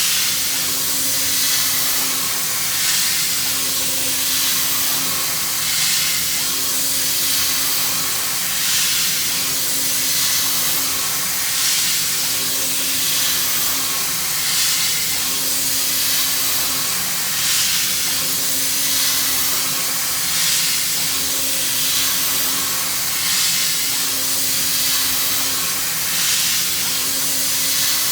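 CNC machining centre milling a rib with a carbide corner-radius end mill: a steady rushing hiss over a steady spindle hum, swelling gently about every three seconds as the tool makes its passes.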